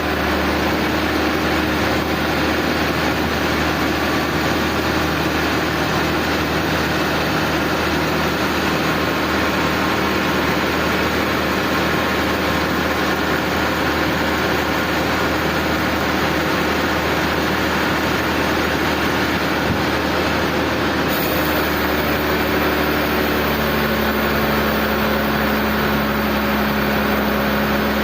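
Sawmill machinery running steadily: a constant low engine or motor hum under a broad, even mechanical rush, with no break or change in pace.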